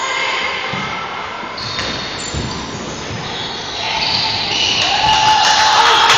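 Basketball game sounds in a large gymnasium: the ball thuds on the wooden court a couple of times among high squeaks of shoes. Spectators' voices grow louder over the last two seconds.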